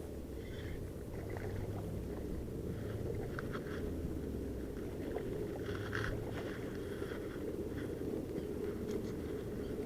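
Steady low rumble of wind and water around a fishing boat, with faint scattered clicks and rattles of tackle being handled.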